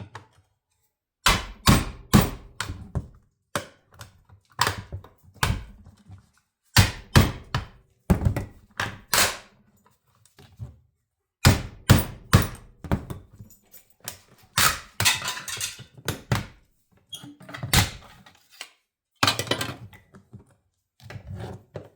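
A big hammer striking a small chisel against a Sentry fire safe to break it open, blow after blow in irregular bursts with short pauses.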